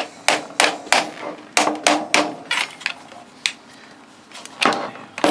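About nine sharp knocks in uneven groups, struck on a reciprocating saw's housing to knock a part loose during disassembly.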